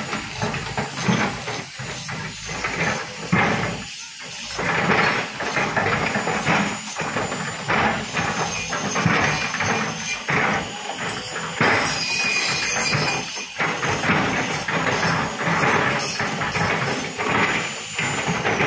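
Volvo crawler excavator at work: its diesel engine runs steadily under load while the steel bucket scrapes and knocks against crushed stone in irregular bursts.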